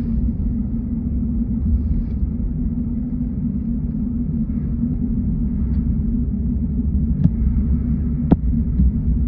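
Steady low rumble of a car driving along a road, with two short sharp clicks near the end.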